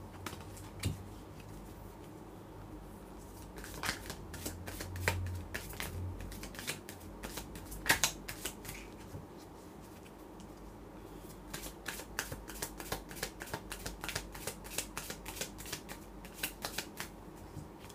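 A tarot deck being shuffled by hand: cards clicking and slapping against each other, sparse at first with one sharp snap about eight seconds in, then a quick run of clicks from about eleven seconds until near the end.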